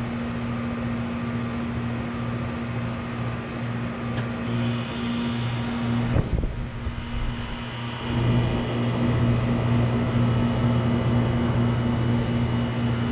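Goodman 2-ton 13 SEER heat pump outdoor unit running in cool mode: a steady electrical hum with fan noise. A click comes about six seconds in, and the unit gets louder from about eight seconds in.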